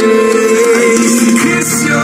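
Melodic dubstep song with a sung vocal line playing loudly through a homemade PVC-pipe Bluetooth boombox speaker; a low bass note comes in about one and a half seconds in.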